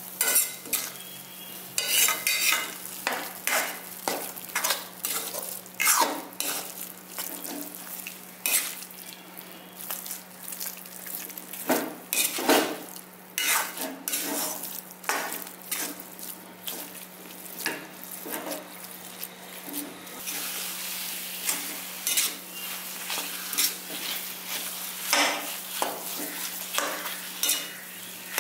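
Steel ladle scraping and knocking against a metal kadai in irregular strokes as thick pearl millet halwa is stirred and mashed, with ghee sizzling underneath. The sizzle runs more steadily in the last third.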